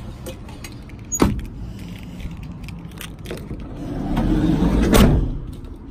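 A sharp click about a second in. Then a Toyota HiAce van's sliding side door is pulled by hand along its track, the rumble building to a heavy thud as it shuts about five seconds in.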